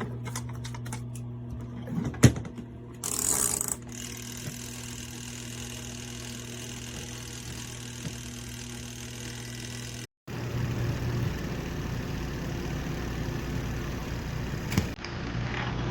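Small portable twin-tub washing machine's motor running with a steady electric hum. There is a sharp knock about two seconds in and a brief hiss just after. The sound drops out for a moment about ten seconds in, then the hum carries on, rougher.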